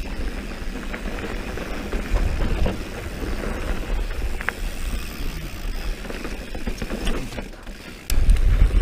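Mountain bike rolling fast down a dirt singletrack: tyres on packed dirt and the bike's rattles, with a constant low rumble and scattered small clicks. Near the end the low rumble jumps suddenly louder.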